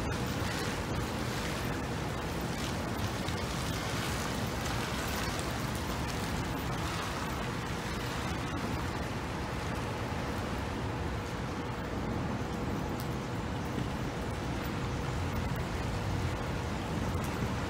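Steady rushing noise of gusty wind and distant traffic under a thunderstorm, with no clap of thunder.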